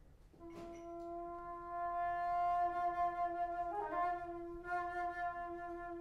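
Solo alto flute sounding one long, low held note that starts about half a second in and swells louder. A quick flicker of grace notes comes near the middle, then the same note is held again.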